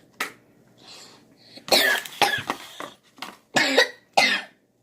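A person coughing several times in short, harsh bursts, the loudest in the second half.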